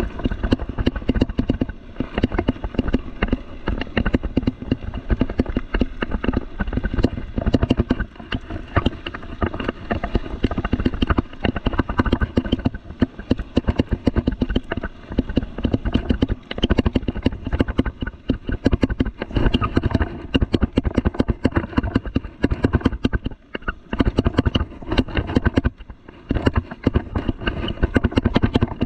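Rocky Mountain Thunderbolt mountain bike rattling and clattering continuously as it rolls over a rough gravel trail, with dense irregular knocks and clicks from the tyres and frame. There is a brief lull near the end.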